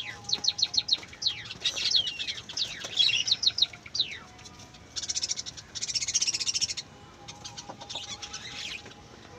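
Small birds chirping: quick high chirps, some sliding downward, in fast runs during the first four seconds, then buzzy high trills about five seconds in and again near the end.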